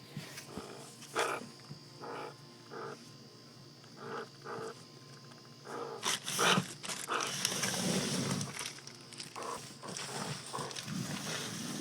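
Animal vocalisations from a cat and squirrel confrontation: a run of short cries about a second apart, then a louder, hissy, noisy stretch around the middle.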